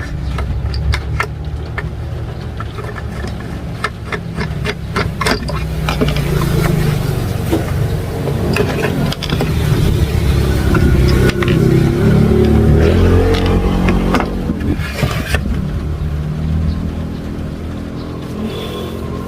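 A motor vehicle's engine rises in pitch and loudness and then fades away. Small clicks and clatter come over the first several seconds.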